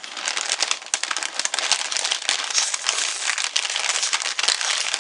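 Continuous dense crinkling and crackling of a potato chip bag being handled.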